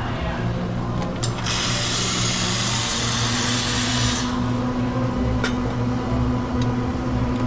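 Espresso machine running with a steady low pump hum, with a loud hissing burst that lasts about three seconds.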